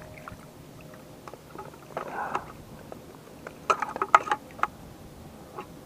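Small splashes and drips of river water as a just-caught smallmouth bass is lifted out of the water by hand, with a short rush about two seconds in and a quick run of sharp splashes about four seconds in.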